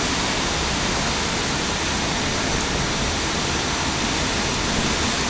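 Steady rushing noise of wind and churning water alongside a moving harbour ferry.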